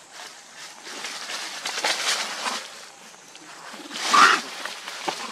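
Young long-tailed macaques scuffling and running over dry leaf litter, the leaves rustling and crunching in bursts, with a brief shrill squeal about four seconds in at the loudest moment.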